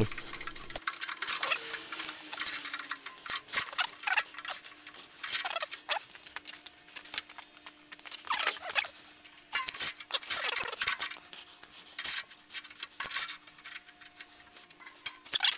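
Irregular light clicks, scrapes and knocks from setting up the Charnwood B350 bandsaw's rip fence by hand on its rail, over a faint steady hum.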